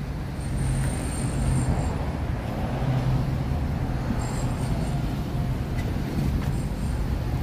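Street traffic: a steady low hum of vehicle engines and road noise from cars on a busy city avenue.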